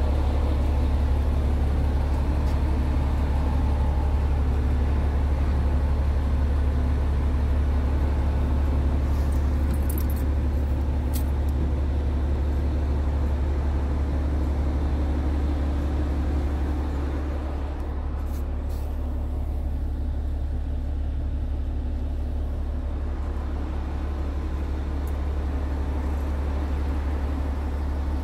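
Scania G tractor unit's engine idling, a steady low drone. It turns slightly quieter and duller about two-thirds through, with a few faint clicks and knocks along the way.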